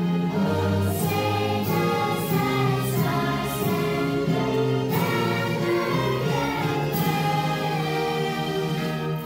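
A girl singing a national anthem, with a group of voices singing along, in slow held notes.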